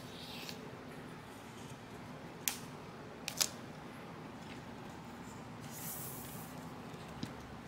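Snap-off utility knife slicing self-adhesive vinyl sticker film: a short scratchy hiss near the start and another about six seconds in, with a few sharp clicks in between.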